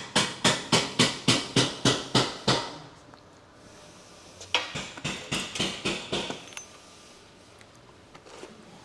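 Rapid hammer blows on metal, about three a second: a run of about nine strikes, then after a pause of a couple of seconds a second run of about eight.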